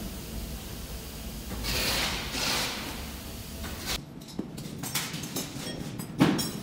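Clicks and knocks from handling an air compressor and its test leads, with two short hissing bursts about two seconds in and a sharp knock near the end.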